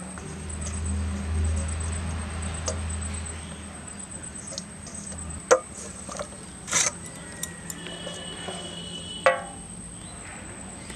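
Hands scraping and scooping wet masala around a steel bowl and over fish on a banana leaf, with a few sharp clicks and knocks of the metal bowl. A low hum runs through the first half, and a short pitched sound ends in a knock near the end.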